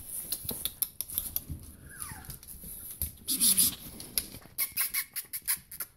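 Four-week-old miniature Australian Shepherd puppies whimpering in short calls, one whine falling in pitch about two seconds in, with scuffling and clicking as they move about on the bedding and wire pen.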